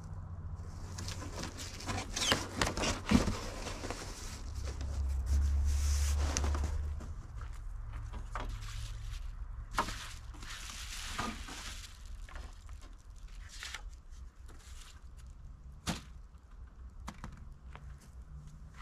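Foil-faced bubble insulation rustling and crinkling as it is handled and laid out on a wooden pallet, with a few sharp knocks and taps. A low rumble runs from about five to seven seconds in.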